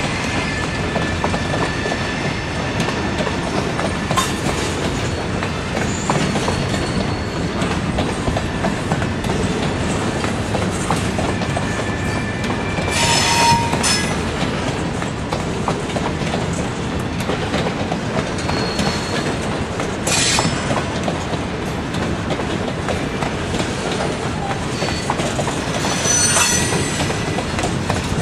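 Empty bulkhead flatcars of a long freight train rolling past: a steady rumble and clatter of steel wheels on the rail, with thin wheel squeals and a few brief sharper squeals spread through.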